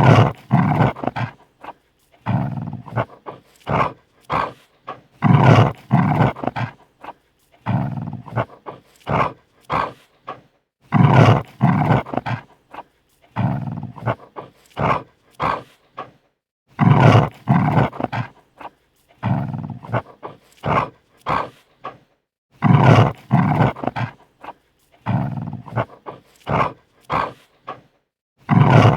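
A large dog snarling defensively: harsh growling snarls in short bursts with brief silent gaps. The same sequence of snarls repeats about every six seconds.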